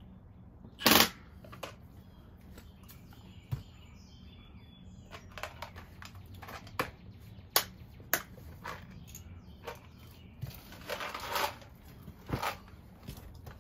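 Clicks, snaps and crinkles of a small plastic package being handled, with one sharp crack about a second in and a run of crackling rustle near the end.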